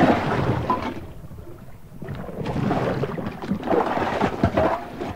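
Water splashing and churning as a loaded canoe is rolled over and brought back up in an Eskimo roll. One loud surge comes at the start and a second swell about two seconds in.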